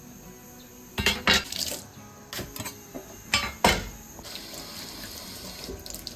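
Kitchen utensils and dishes clattering: a string of sharp knocks and clinks, about seven in all, in the first four seconds. A quieter hiss follows.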